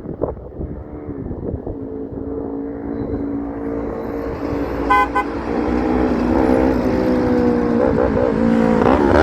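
Semi-truck air horn sounding a long, held multi-note chord that grows louder as the truck comes closer, over the rumble of the truck, with a brief higher-pitched beep about five seconds in.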